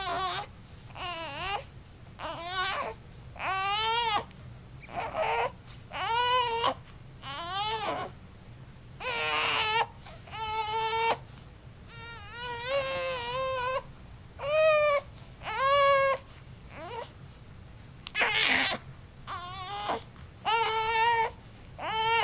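Five-week-old baby crying face-down during tummy time: about seventeen short cries, one every second or so, each arching up and down in pitch.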